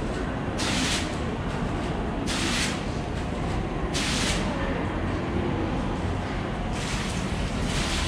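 Computer-controlled water-drop curtain of a fountain clock falling into its basin: a steady splashing hiss that swells in short bursts as each printed image of droplets lands, three times and then a longer swell near the end. A steady low rumble of background ambience lies underneath.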